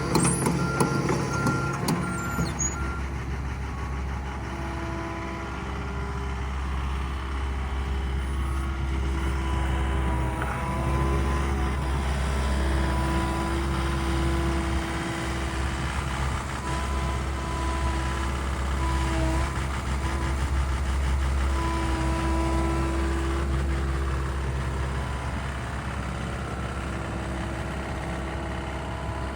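A 2016 Komatsu PC138USLC-11 excavator's Komatsu diesel engine running steadily, with a whining tone that swells and fades as the hydraulics work. An alarm beeps in evenly spaced short beeps for the first few seconds.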